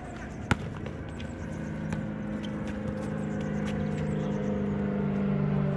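A motor vehicle's engine running at a steady pitch, growing slowly louder over a few seconds. A basketball bounces once on the court about half a second in.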